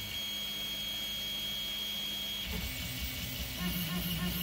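PowerBelt3D Zero belt 3D printer running: a steady fan hiss with a thin high whine, then, about two and a half seconds in, the stepper motors start driving the print head in short buzzing strokes with changing pitch.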